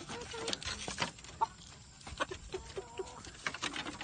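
Chickens clucking in short calls, with scattered light taps and clicks among them.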